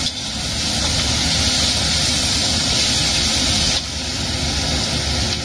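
Green beans and meatball slices sizzling in a hot wok during a stir-fry, a steady hiss that drops a little about four seconds in, over a low steady hum.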